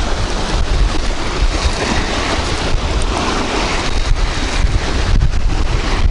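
Wind blowing across the microphone: a loud, steady low rumble with an even hiss above it.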